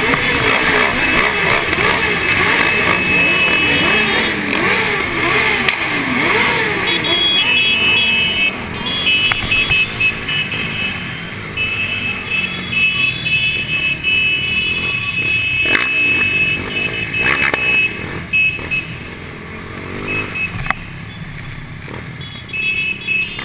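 Several motorcycle engines revving, their pitch rising and falling over and over for the first several seconds. They then settle into steadier, quieter running, with a few sharp clicks past the middle.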